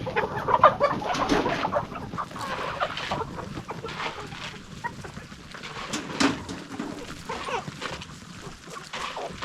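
A flock of domestic chickens clucking as they feed, many short overlapping clucks with one louder call about six seconds in.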